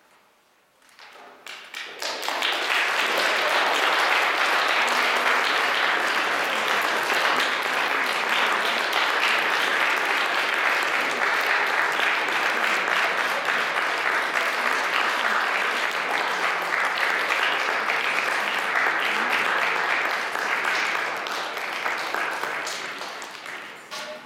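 Audience applauding: a few scattered claps about a second in swell quickly into steady, dense applause, which thins and fades near the end.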